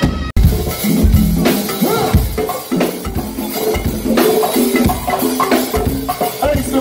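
Live go-go band music driven by fast hand drumming on a set of congas, with the rest of the band playing. The sound cuts out for an instant about a third of a second in.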